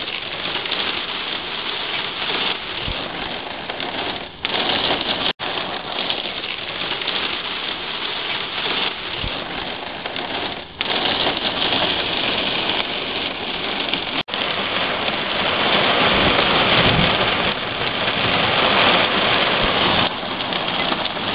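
Heavy thunderstorm rain pouring down, a dense steady hiss that grows louder about halfway through.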